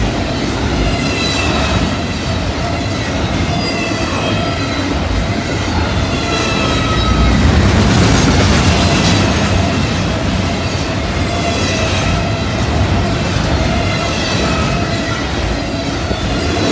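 Double-stack intermodal well cars rolling past close by: a loud, steady rumble and clatter of steel wheels on the rail joints, loudest about halfway through, with thin high tones coming and going over it.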